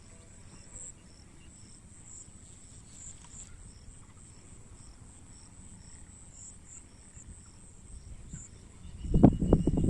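Insects chirping: a high steady buzz with small repeated chirps about twice a second. About nine seconds in, a loud burst of rustling and knocking noise starts.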